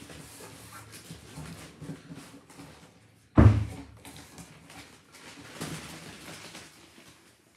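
Cardboard box and plastic wrapping rustling as a boxed shield is worked out of its packaging, with one sudden loud thump about three and a half seconds in.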